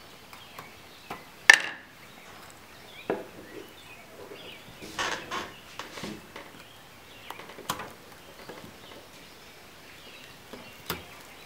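Knife cutting into a rubber toy lizard on wooden boards: scattered knocks and taps against the wood, the sharpest about a second and a half in, with a brief scraping rustle about five seconds in.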